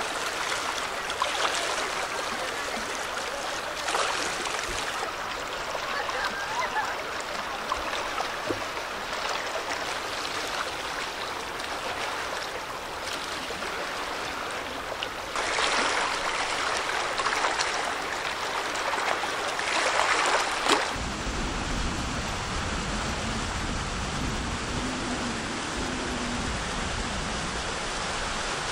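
Water washing against a rocky shore, a steady hiss with a few louder surges. About two-thirds of the way through, a low rumble joins in.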